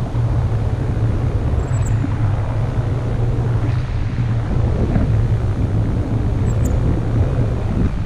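Airflow of the paraglider's flight buffeting the microphone of a selfie-stick action camera: a loud, steady rush, heaviest in the low end.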